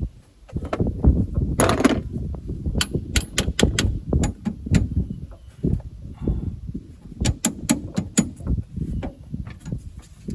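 Irregular clicks and knocks of parts and tools being handled on the truck, with one longer rattling scrape about two seconds in, over a steady low rumble.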